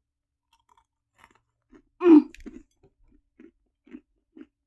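A person biting into a freeze-dried Double Decker chocolate bar: one loud crunch about two seconds in, then steady chewing about twice a second.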